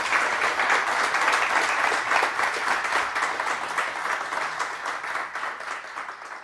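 Audience applauding, a dense patter of many hands clapping that slowly fades out near the end.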